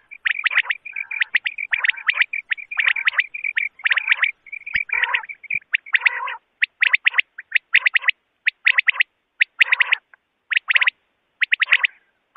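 Recorded quail calls used as a hunting lure: quick clusters of short, sharp, high notes repeating about twice a second, with a brief pause late on. A faint steady whistle runs beneath the calls for the first few seconds.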